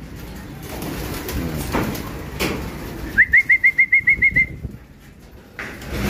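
Racing pigeons cooing in the loft. About halfway through comes a quick run of about nine short, high chirps, the loudest sound here.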